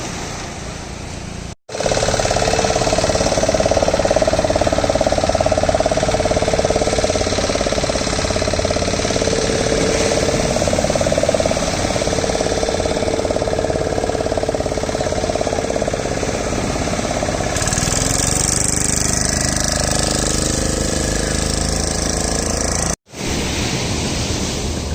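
An engine running close by with a rapid, heavy knocking, steady and loud. It cuts out sharply for an instant about one and a half seconds in and again near the end.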